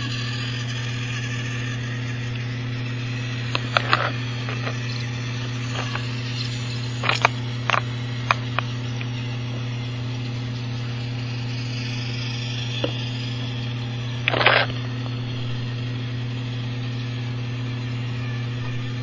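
Battery-powered TOMY toy train's small electric motor whirring steadily as it runs around plastic track. A few sharp clicks come between about 4 and 9 seconds in, and a short rattle comes near 14 seconds.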